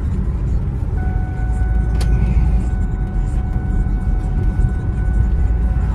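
Road and engine rumble inside an SUV's cabin while it drives. A steady pitched tone is held from about a second in to the end, and there is a single sharp click about two seconds in.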